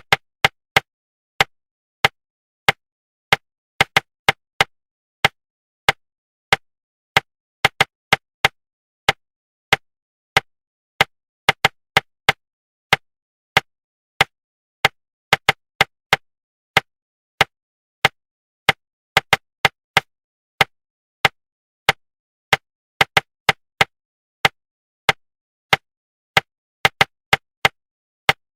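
Sharp taps knocking out an uneven rhythm, single strokes mixed with quick clusters of two to four, with silence between: a rhythm tapped to suppress inner articulation while speed reading.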